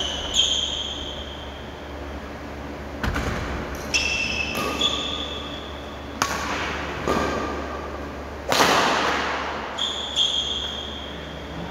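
Badminton rally on a wooden court: sharp racket strikes on the shuttlecock every second or so, the loudest and longest about eight and a half seconds in, with short high-pitched squeaks of court shoes on the floor.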